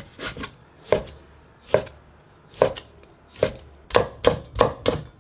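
Knife chopping pork, single strokes about a second apart, quickening to about three a second near the end.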